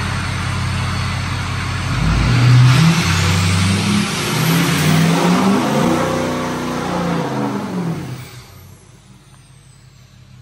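Ford Super Duty pickup doing a burnout: the engine idles, revs up hard about two seconds in and holds high, rising and falling, over the hiss of spinning tyres, then drops away quickly about eight seconds in.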